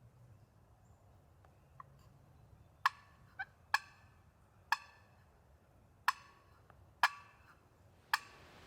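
Turkey clucking: a series of about seven short, sharp single notes, loud and close, starting about three seconds in and coming roughly once a second at uneven spacing.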